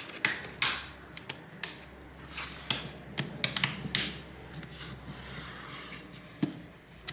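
Plastic laptop screen bezel clips clicking into place as the bezel is pressed on around the display of a Lenovo Ideapad 3: a scattered, irregular run of sharp clicks, busiest in the first four seconds, with light handling of the plastic.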